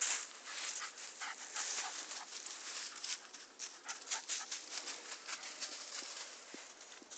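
Irregular crunching and rustling of dry fallen leaves under footsteps and a cocker spaniel's paws as the dog runs through the leaf litter and undergrowth, with sounds from the dog mixed in.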